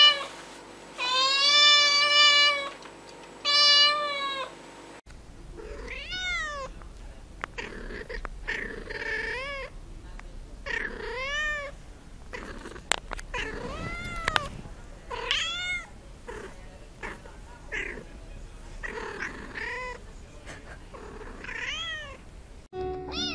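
Domestic cats meowing. First a young black-and-white cat gives two long, loud meows. Then a different cat, close to the microphone, gives a run of short meows about once a second, each rising and then falling in pitch.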